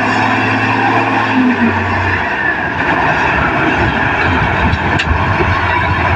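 Komatsu D58P crawler bulldozer working: its diesel engine runs steadily and its steel tracks clatter and grind. About two seconds in, the steady engine note breaks up into an uneven rumble.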